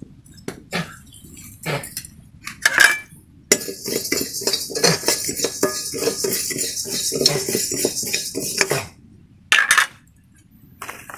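Metal spoon clinking and scraping against a steel kadai while rice is stirred as it dry-roasts. Scattered single clinks at first, then about five seconds of quick continuous scraping and clinking with a steady hiss, stopping sharply near the end.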